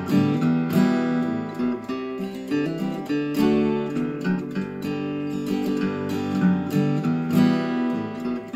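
Martin 000-18 acoustic guitar, a small-bodied flat-top with a mahogany body and spruce top, being strummed, its chords ringing on between strokes.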